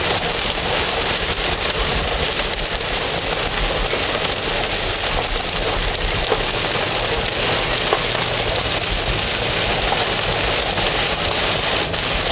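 Heavy rain falling on a car, a steady hiss with scattered drop ticks.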